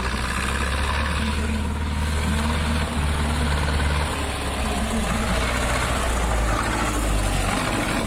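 Zetor tractor's diesel engine running steadily as the tractor drives, its note shifting a few times as the throttle and load change.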